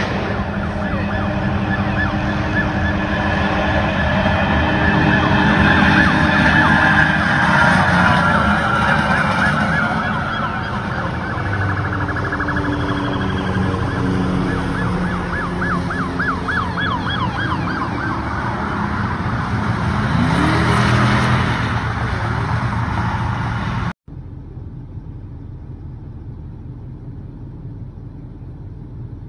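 Police sirens wailing and yelping, with fast up-and-down sweeps, over the noise of highway traffic, loudest twice as the pursuit passes. Near the end the sirens cut off suddenly, leaving only the quieter hum of traffic.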